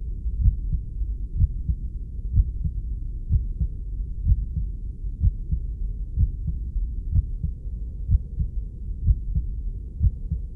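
Heartbeat sound, a steady 'lub-dub' double thump repeating about once a second, over a continuous low rumble.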